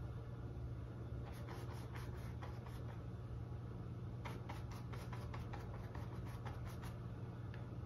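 Paintbrush bristles scratching and dabbing on canvas in quick short strokes, laying on acrylic fur texture, in two runs with a brief pause between. A steady low hum runs underneath.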